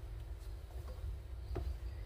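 Quiet outdoor background with a steady low rumble and a faint steady hum, broken by a few soft knocks, the loudest about one and a half seconds in, as a plastic paint tray and brush are picked up off the wooden deck.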